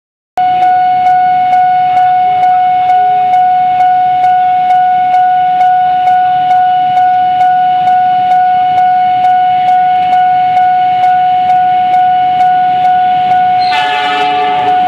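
Railway level-crossing warning bell ringing steadily, one high chime struck about two and a half times a second. Near the end the approaching train becomes audible under the bell.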